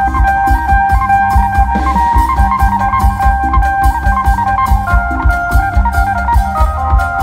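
Amplified Isan (lam/molam-style) band music: a khaen mouth organ holds a steady drone under a moving melody, while an electric phin is plucked and bass and drum kit keep a steady beat.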